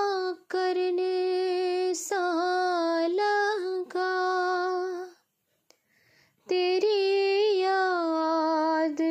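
A high solo voice singing a Punjabi song, unaccompanied, holding long drawn-out notes that waver slightly. The singing breaks off for about a second and a half near the middle, then resumes with another long held phrase.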